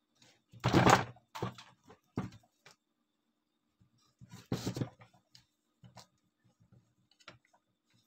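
Knocks and thuds of a washing-machine spin-dryer motor's metal housing being picked up, turned over and set down on a workbench, the two loudest about a second and about four and a half seconds in, with lighter taps and clicks between.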